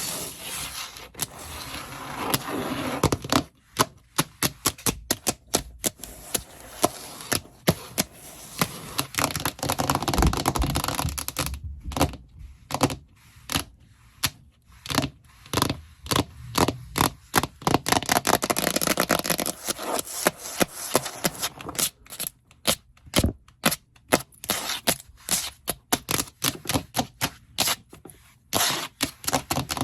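Fingernails scratching and tapping on a hard surface: quick runs of sharp clicks alternate with stretches of continuous scratching.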